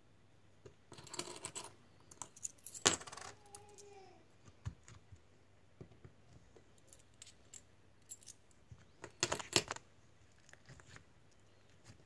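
Metal coins clinking and tapping together in the hand. There is a quick run of small clinks about a second in, a single sharp clink near three seconds, and another quick run of clinks about nine seconds in, with scattered light ticks between them.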